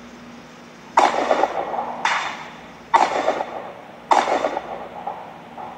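Four carbine shots fired about a second apart, each a sharp crack that dies away quickly.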